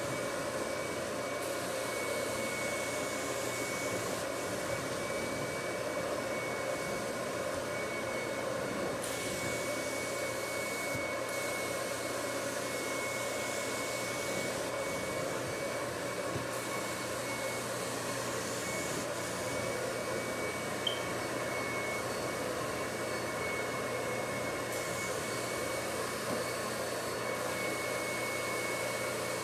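Carpet extraction machine's vacuum running steadily, sucking through the wand as it is drawn over the carpet, with a steady high whine over the rush of air.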